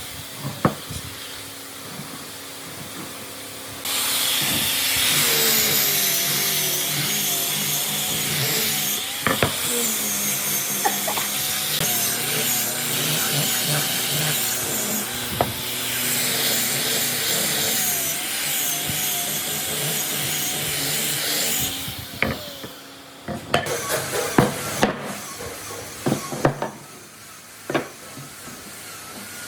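A power tool working wood runs for about eighteen seconds, starting about four seconds in, with a wavering motor whine. After it stops there is a series of sharp knocks and taps on wood.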